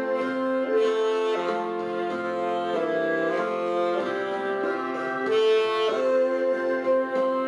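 Saxophone ensemble playing a slow hymn in several parts, holding sustained chords that move to a new chord every second or so.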